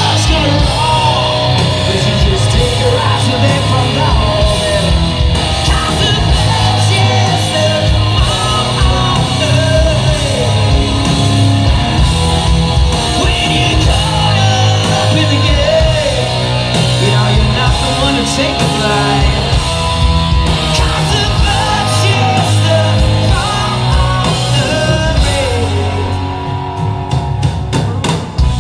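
Live rock band playing: a male lead singer over electric guitars and drums, heard from within the crowd.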